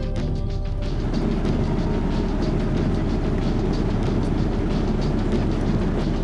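Airliner cabin noise in flight: a steady low rumble of engines and airflow through the fuselage.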